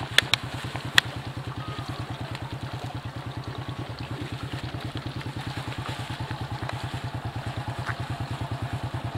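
Small step-through motorcycle's engine idling with a steady, even rapid beat. A few sharp clicks in the first second.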